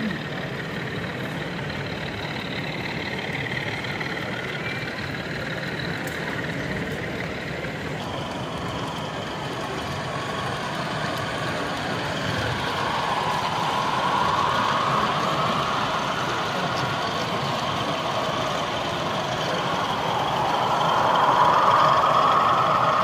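Model trains running on a layout: a steady rumble and whine of wheels and motors that swells twice as trains pass close, about halfway through and near the end, over steady hall background noise.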